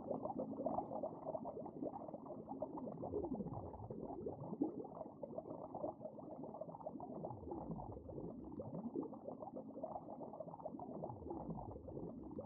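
Bubbling water sound effect: a continuous, muffled stream of bubbles.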